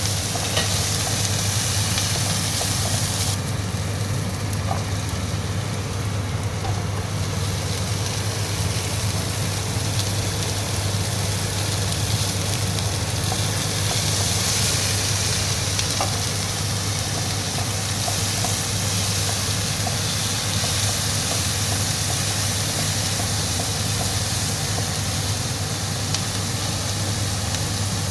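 Food sizzling steadily in hot oil in a pan, with a few faint ticks of a utensil against the pan, over a constant low hum.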